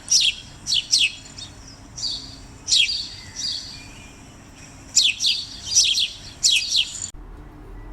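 Small birds chirping: runs of short, high chirps that fall in pitch, coming in three groups and cutting off abruptly near the end.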